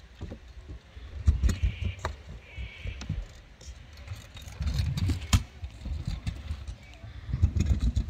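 Kick scooter's wheels rolling over a modular pump track, a low rumble that swells three times as the rider goes over the humps, with sharp clicks and knocks from the wheels and deck.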